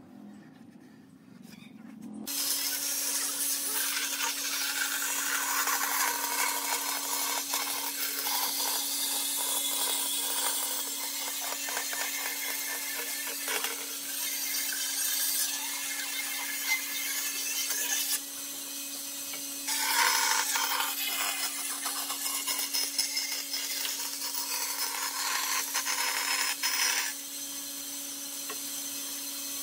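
An electric power tool working wood: a steady motor hum under a rough rasping noise that comes and goes with the work, starting about two seconds in.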